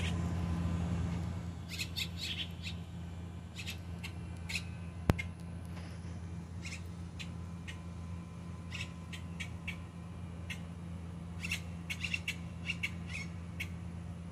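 Juvenile grackle chicks calling: short, sharp, high calls in quick clusters every second or two, over a steady low hum. A single sharp click about five seconds in.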